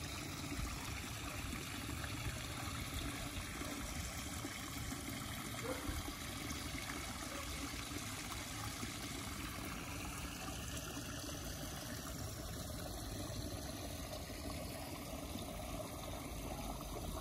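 Water trickling steadily in a small backyard pond planted with floating plants and reeds.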